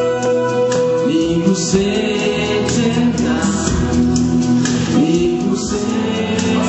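A gospel worship song: voices singing together over electronic keyboard accompaniment.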